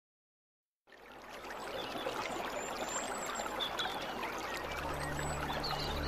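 After about a second of silence, a steady rushing, water-like noise fades in. A low steady hum joins it about four and a half seconds in.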